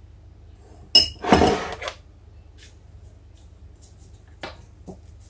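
Metal teaspoon clinking against a glass jar as mustard is tipped in: one sharp ringing tap about a second in, followed by a short scrape, and two light knocks near the end.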